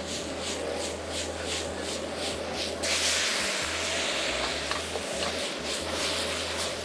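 Onions and peppers sizzling in a wok over a propane burner, the wok tossed in a steady rhythm of about three tosses a second. About three seconds in, red wine goes into the hot wok with a sudden, louder hiss that carries on as the pan flares up.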